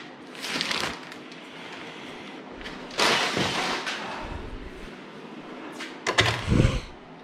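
Handling noise of black fuel tank straps in a plastic bag: the plastic rustling as the straps are lifted and carried, with a sudden rustle or clatter about three seconds in and another short one near the end as they are laid on a workbench.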